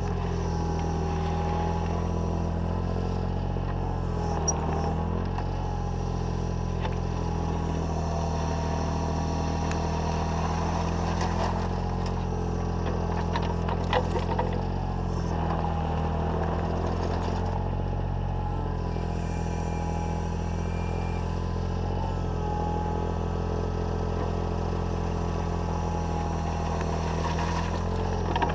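Takeuchi TB014 mini excavator's diesel engine running steadily, with a whine that rises and falls in pitch as the boom and bucket work. A brief clatter of gravel spilling from the bucket about halfway through, and another knock near the end as the bucket meets the stones.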